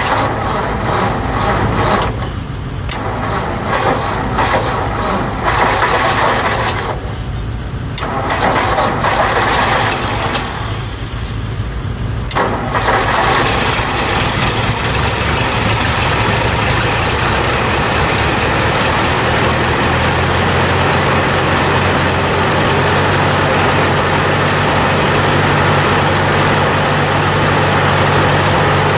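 A 1956 Ford tractor's six-volt four-cylinder engine is cold started without starting fluid. It stumbles unevenly for about twelve seconds, with three brief lulls, then catches and runs steadily, settling to an even idle.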